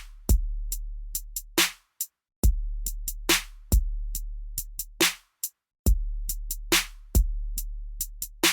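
Background hip-hop beat: drum machine with deep sustained bass kicks, snare and hi-hat hits, with brief drop-outs between phrases.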